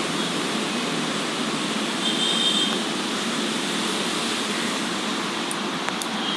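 Steady background rumble and hiss of street traffic, with a brief high-pitched tone about two seconds in.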